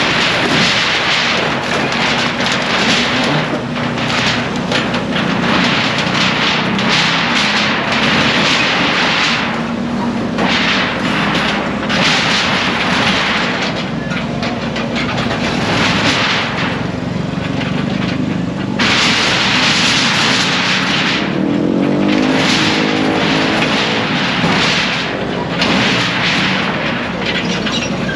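An engine running steadily under loud, irregular rushes of rough noise, with its pitch sweeping up and down about three-quarters of the way through.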